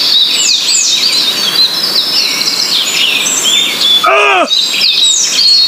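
Many small birds chirping and twittering in a dense chorus of quick high notes, with a short cry about four seconds in.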